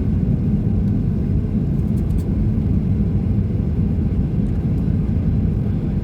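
Steady low rumble inside the cabin of a Boeing 737-800 on the ground before takeoff, its CFM56 engines running.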